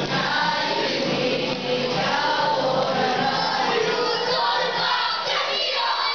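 A group of children singing a kapa haka action song together over steady musical accompaniment.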